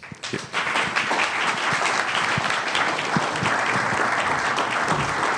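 Audience applauding, the clapping swelling up within the first half second and then holding steady.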